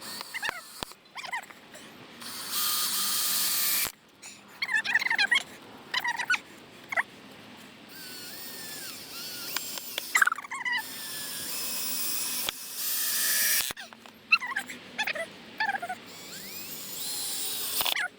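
Cordless drill driving screws through pilot holes into wooden deck planks, running in several short bursts of a few seconds each. Short high squeaky chirps come between the runs.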